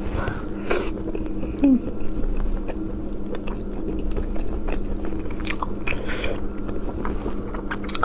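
Close-miked eating of shellfish: biting and wet chewing, with many short sharp mouth clicks.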